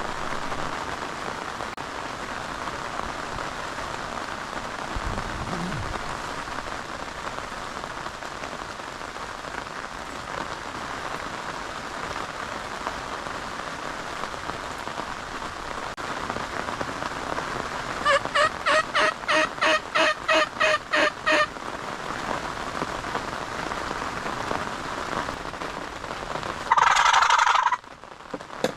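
Steady spring rain, with a wild turkey exchange cutting through it. About two-thirds of the way in comes a run of roughly a dozen evenly spaced yelps, about three or four a second. Near the end there is a loud, short gobble.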